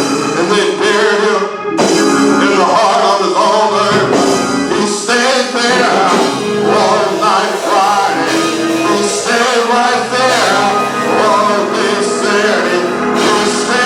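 Gospel music: a male voice singing, drawn-out and without clear words, over instrumental accompaniment.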